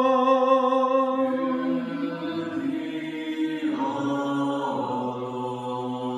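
Orthodox liturgical chant sung without instruments: a few voices hold slow, long notes, the melody shifting about two seconds in and again near four seconds over a steady lower note.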